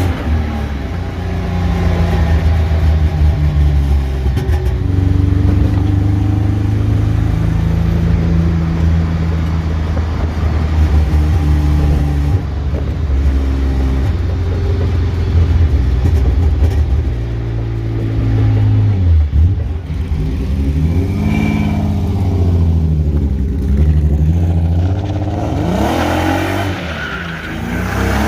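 BMW E36's engine and exhaust under way, repeatedly revving up and dropping back, as when shifting through the gears. The muffler is blown.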